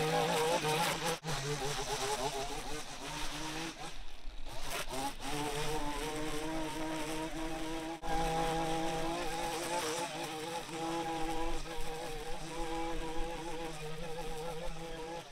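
Small engine-powered yard tool running steadily at high speed, its pitch wavering slightly, with a few brief breaks.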